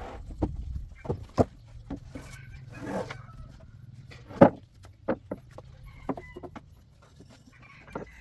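Irregular sharp knocks and taps, about a dozen spread unevenly, the loudest about four and a half seconds in, with a short rasping noise around three seconds in.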